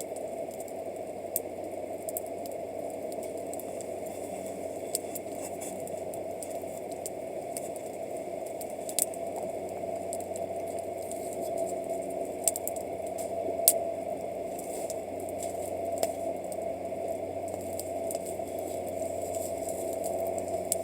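Wood campfire crackling, with scattered sharp pops of burning wood over a steady low rushing background.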